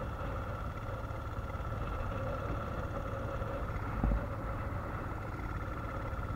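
Quad bike engine running steadily, with a low rumble under it and a single dull thump about four seconds in.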